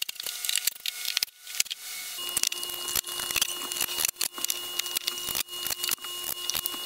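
Irregular wooden knocks and clatter as plywood and boards of a chicken nesting box are handled and set against the coop framing, with a faint steady hum coming in about two seconds in.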